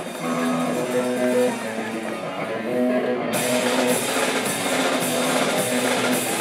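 Hardcore punk band playing live: an electric guitar riff, dull and thin at first, then about three seconds in the drums and cymbals come in with the full band at full loudness.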